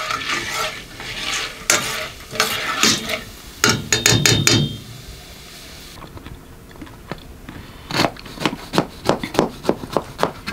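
Kitchen clatter of a spoon stirring, scraping and knocking in a cooking pot. The clatter eases off about halfway through, then a quick run of sharp clicks comes near the end.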